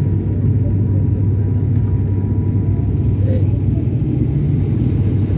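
Airliner cabin noise on descent: a steady low drone of engines and airflow heard from inside the cabin, with a faint steady whine above it.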